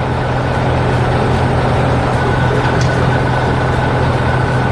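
Heavy construction-machine engine running steadily, a constant low hum and roar.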